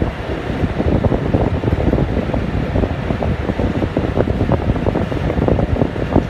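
Wind buffeting the microphone in a loud, uneven low rumble, over a steady drone that may come from the boat's engine.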